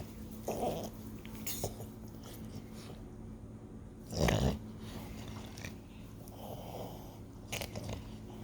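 A dog's noisy breathing and snuffles, with one louder, short snort-like sound about four seconds in.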